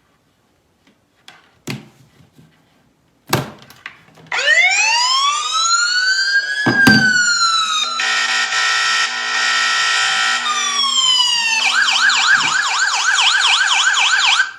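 Mobile phone's anti-theft alarm app sounding a police-style siren through the phone's speaker, set off when the phone is taken off its charger. After a few clicks of the phone being handled, a loud wail rises and falls, gives way to a steady blaring tone, then to a fast warbling yelp, and cuts off abruptly at the end.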